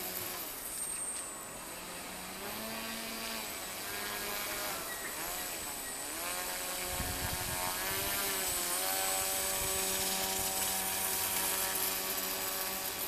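Small electric motor of a radio-controlled model sled whining, its pitch rising and falling again and again with the throttle, then holding at a higher steady pitch for the last few seconds.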